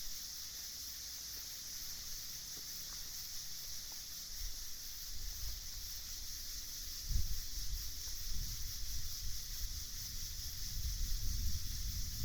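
Night ambience: a steady high-pitched insect chorus. From about four seconds in, wind gusts buffet the microphone with a low rumble, the strongest gust near seven seconds.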